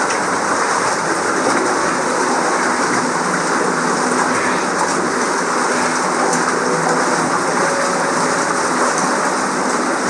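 Steady rushing of water from an underground stream running through a cave passage, an even noise that does not let up.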